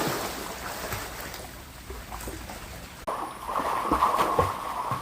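Swimming-pool water splashing and lapping as a swimmer crosses the pool. About three seconds in, the sound changes abruptly to a steadier rush of water.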